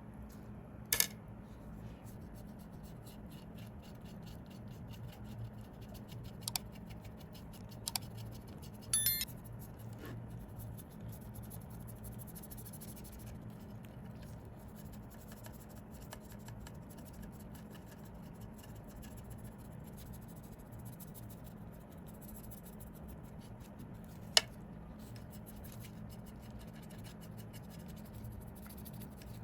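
A small hand tool scratching and scraping lightly at watch parts over a steady low hum. A few sharp clicks of metal tapping stand out, with a short rattle about nine seconds in and a final loud click near the end.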